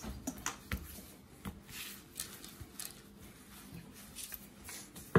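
Faint rubbing and tapping of hands pressing pieces of dough flat on a floured granite worktop, with a few light knocks as a round cutter and a rolling pin are handled.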